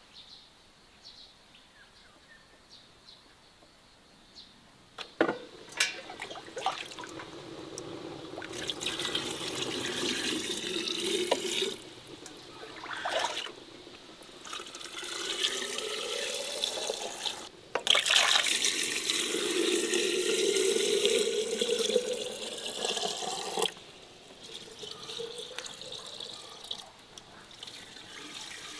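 Water poured from enamel jugs into a large metal pot of empty glass jars, in several long pours with short breaks, the first starting about five seconds in. The splashing rises in pitch as the pot fills.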